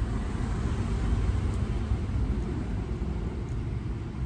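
Steady low background rumble, with a few faint small ticks as electrical wires are twisted onto a plug.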